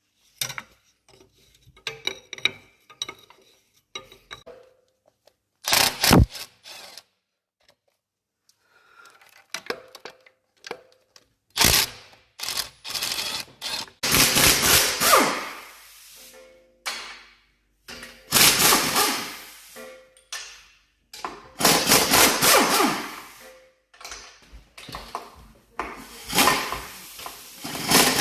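Metal tools clinking and knocking against engine parts, then from about halfway through four bursts of a power tool running for about two seconds each, undoing fasteners.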